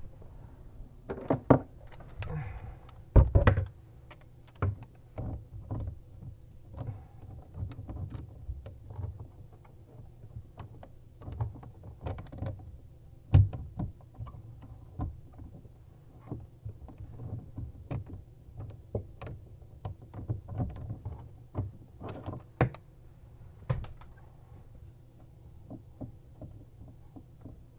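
Hand tools knocking, clicking and scraping against an old faucet's underside retaining nut and the inside of a bathroom vanity as the nut is worked loose, with a few sharper knocks among irregular lighter clicks.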